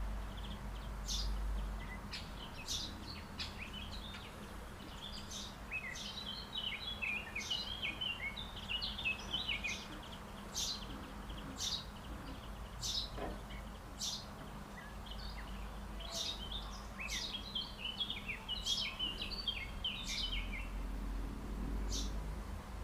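Songbirds chirping and twittering: short, sharp, high chirps repeat every second or two, with two longer bouts of quick, jumbled twittering, about five and seventeen seconds in. A steady low rumble runs underneath.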